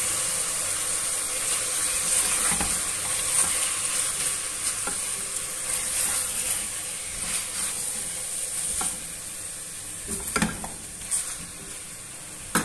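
Chicken pieces sizzling in hot oil in a metal pot while a spatula stirs and turns them, with a few sharp knocks of the spatula against the pot near the end. The chicken is being lightly fried until its colour changes, and the sizzle eases off gradually.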